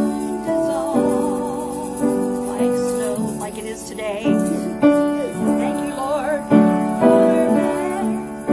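A woman singing a gospel hymn with vibrato over piano chords.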